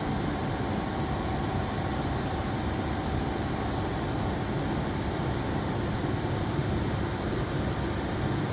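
Steady machinery running: an even rushing hum with a faint, thin steady tone in it, unchanging throughout.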